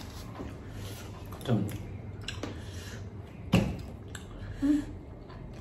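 Short non-word vocal sounds from a person over a low steady hum: a quick falling cry about a second and a half in, a sharper sudden one with a falling tail at about three and a half seconds, and a brief hummed 'mm' near the end.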